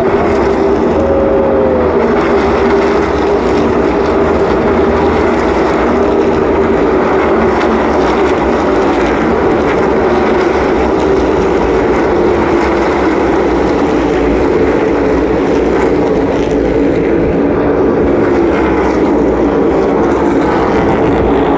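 NASCAR Cup stock cars' V8 engines running at race speed on the oval, many cars blending into one loud, steady drone.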